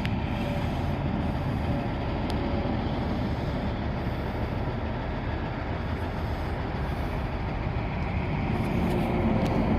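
Old tow truck's diesel engine running steadily, a low rumble that grows a little louder near the end.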